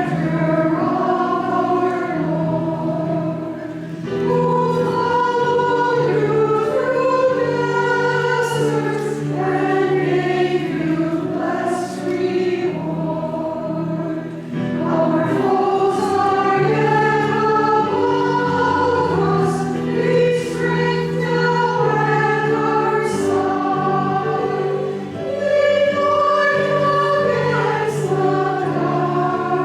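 A choir singing a slow hymn in long, held phrases, with steady low notes sustained underneath.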